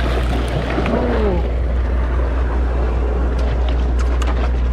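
Sportfishing boat's engine running with a steady low drone under wind and water noise, with a few short clicks near the end.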